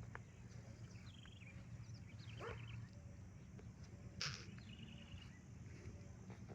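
Faint rural outdoor ambience: small birds chirping now and then over a steady low hum, a short rising animal call about two and a half seconds in, and a brief sharp noise about four seconds in.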